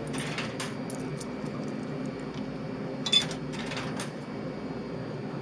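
Coins fed one at a time into a vending machine's coin slot, each dropping through the coin mechanism with a sharp click; the loudest clack comes about three seconds in. A steady low hum runs underneath.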